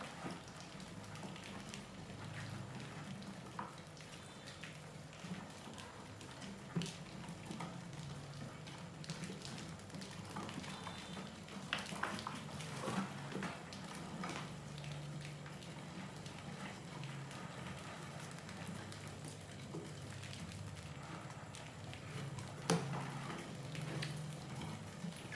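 Many mice scurrying over a plastic bucket trap and wooden ramps: a steady patter and scrabble of small claws, with scattered sharp clicks and knocks as the cardboard lid tips under them, and a low hum underneath.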